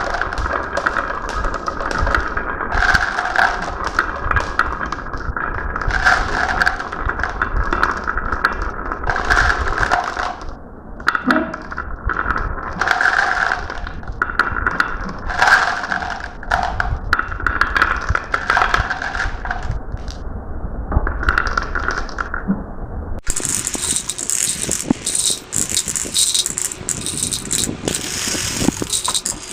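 Marbles rolling and clattering along a marble run track: a dense, continuous run of clicks and rattles. Near the end the sound cuts suddenly to a brighter, higher rattle.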